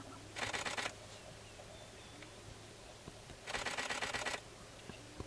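Two bursts of rapid camera shutter clicks, a short one about half a second in and a longer one, close to a second, a few seconds later.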